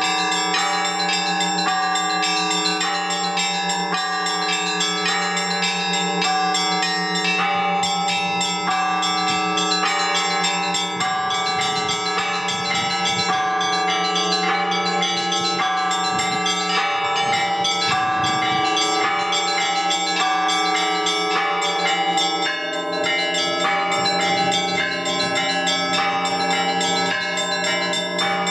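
Orthodox church bells rung by a bell ringer: several bells of different sizes struck in a continuous, quick pattern, the small bells' rapid strikes ringing over the steady hum of the larger bells.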